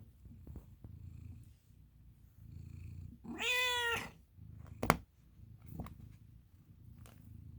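American Ringtail cat purring in a low, pulsing rhythm, with a single drawn-out meow about three seconds in. A sharp click comes about a second after the meow.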